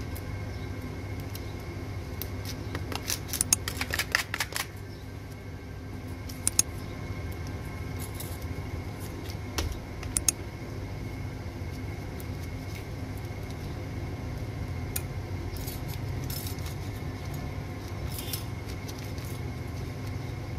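Hand work on a car battery's lead terminal post: a few short bursts of metal scraping and clicking, from a file on the post and a terminal clamp and nut being fitted. A steady low hum runs underneath.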